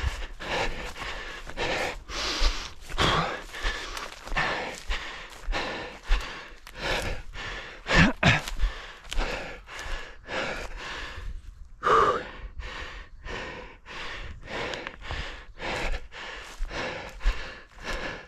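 An orienteer breathing hard and running, close to a head-mounted microphone: a steady rhythm of breaths and footfalls, about two to three strokes a second.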